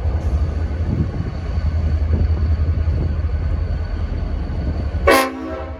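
Strong wind buffeting the microphone as a heavy low rumble, then about five seconds in a short, loud blast of a diesel locomotive's Leslie S5T air horn, a chord of several notes lasting about half a second.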